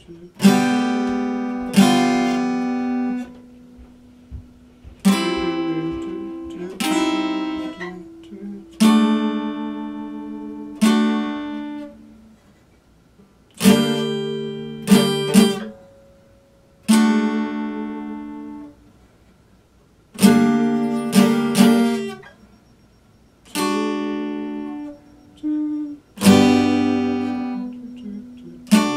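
Epiphone acoustic guitar strummed slowly: single chords struck every second or two, each left to ring and fade, some struck twice in quick succession.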